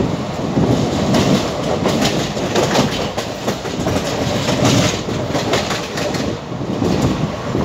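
Dehradun Express passenger coach running along the track, its wheels clattering over the rails under a steady loud rolling rush. Quick clacks come thick through the middle and ease off near the end.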